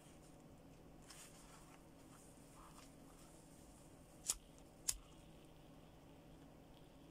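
A pocket lighter struck twice: two sharp clicks about half a second apart, a little past the middle, bringing up a flame. Otherwise a faint low room hum.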